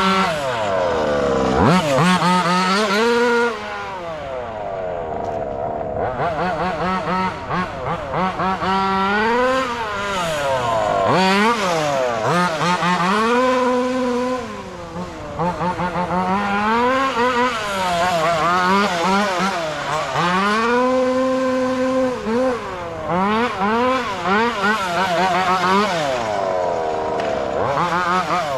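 Taylor RC 35cc two-stroke engine of a 1/5-scale gas-powered MCD XS5 Max RC car, revving up and dropping back over and over as the car is driven through accelerations and slowdowns, its pitch rising and falling again and again.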